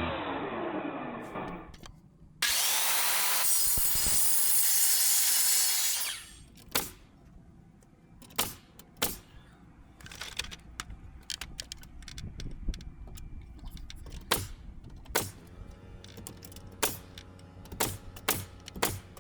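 A power saw cuts through a board for about three and a half seconds, after background music fades out. Then comes a run of sharp, irregularly spaced knocks as nails are driven into the siding boards.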